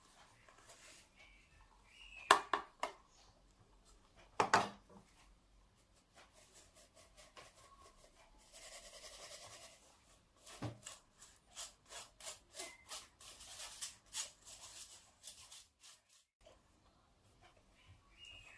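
Powdered sugar being sifted through a stainless steel mesh sieve into a plastic bowl: two sharp knocks early, a scraping hiss, then a run of quick clicks and scrapes, about three a second, as a spoon pushes the sugar through the mesh.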